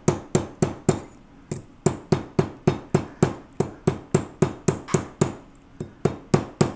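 Plastic-faced mallet tapping a silver tube rivet against a steel bench block, about three to four quick, sharp strikes a second with a couple of short pauses, flattening the rivet's flared edge down to set it through an enameled pendant.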